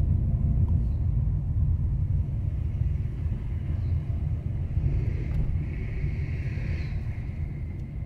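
Car driving: a steady low rumble of engine and road noise, with a faint higher hiss that swells about five seconds in and fades by about seven.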